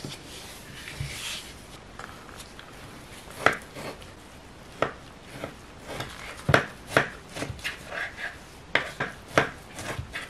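Knife cutting a roll of dough filled with apple into slices, each cut ending in a sharp knock of the blade on the worktop, several times at uneven spacing from about three seconds in. Before that, soft rustling as gloved hands roll the dough.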